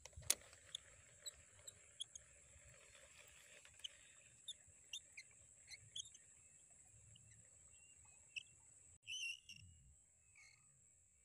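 Faint wetland ambience: scattered short chirping calls of frogs, about one or two a second, over a steady high insect drone, with a louder cluster of calls about nine seconds in. A single sharp click just after the start comes from the baitcasting reel being handled.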